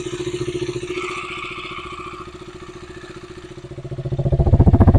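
KTM Duke 200's freshly rebuilt single-cylinder engine idling steadily, heard close up. It grows louder and deeper near the end. It runs smooth, without abnormal noise: "smooth, ekdam silent", butter-smooth.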